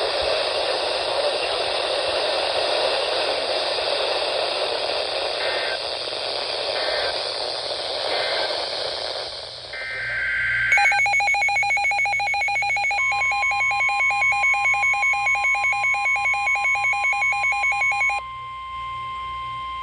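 Weather radio receiving an emergency alert: radio static hiss with faint short data-like chirps, then electronic alert tones. A rapidly pulsing beep runs over a steady tone near 1 kHz, and the beeping cuts off near the end, leaving the steady tone.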